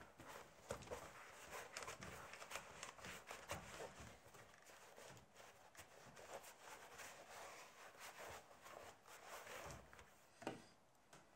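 Faint rustling and light taps of a leather panel being handled, folded and pressed down by hand on a wooden table, with one sharper knock about ten and a half seconds in.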